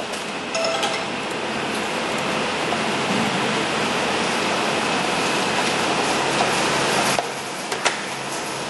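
A steady, even hiss of noise that drops in level about seven seconds in, followed by two sharp clicks near the end.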